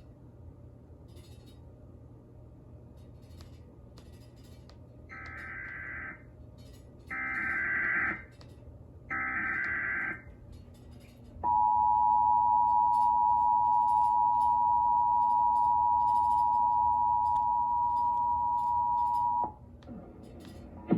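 Emergency Alert System test alert played over TV sets. First come three short screeching bursts of SAME header data, each about a second long and about a second apart. Then the steady two-tone attention signal sounds loudly for about eight seconds and cuts off suddenly.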